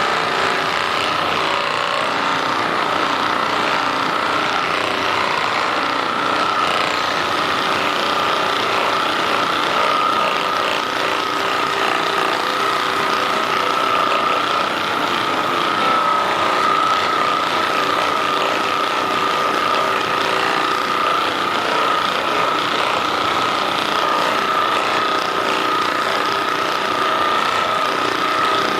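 Handheld percussive massage gun running steadily, a loud buzzing with a high whine, worked over tight muscles.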